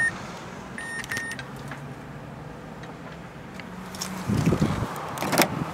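Mazda CX-7 engine idling, heard from inside the cabin as a steady low hum, with the car's electronic chime beeping once at the start and twice about a second in. The hum stops about four seconds in, as the SUV is shut down, and a few thuds and sharp clicks follow near the end.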